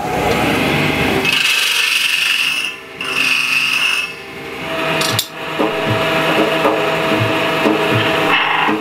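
Copper blank being shaped on a metal-spinning lathe, a hand tool pressed against the turning disc with a steady rubbing, scraping sound. A high squeal comes and goes in the first few seconds. Later a soft knock repeats about twice a second.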